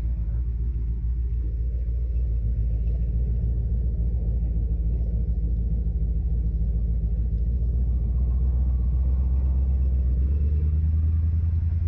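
A 6.0-litre LS V8 pulling the car at a gentle cruise, heard from inside the cabin as a steady low rumble. It swells a little through the middle and changes to a deeper, steadier note shortly before the end.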